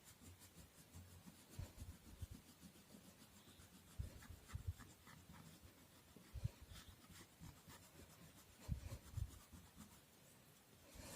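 Faint scratching of colour being rubbed onto paper in short irregular strokes, with a few soft low knocks.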